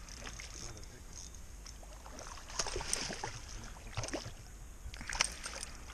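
Small water splashes and light clicks as a hooked pickerel is played and reeled in beside an inflatable boat, with clusters of splashing about two and a half seconds in and again about five seconds in.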